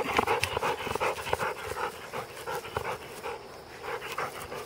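Yellow Labrador retriever panting rapidly with its mouth open, a quick run of short breaths that grows quieter over the first couple of seconds.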